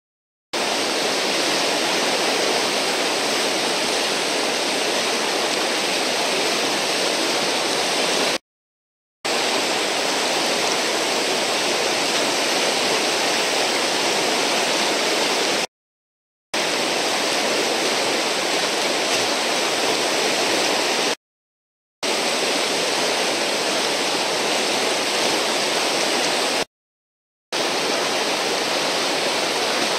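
Steady loud rush of whitewater from a breaking river standing wave, cut by four brief gaps of silence.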